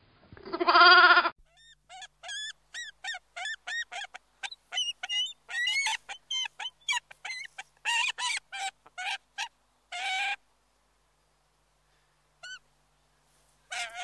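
A sheep bleats once, loudly, in the first second. Then a bald eagle calls in a fast run of short, shrill chirps, about three a second, for some nine seconds, with a few more chirps near the end.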